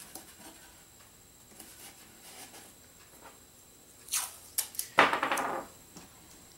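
Blue masking tape being pulled off the roll: a short rip about four seconds in, then a louder rasping rip lasting about half a second, with faint rustling of tape being pressed onto a cardboard tube before it.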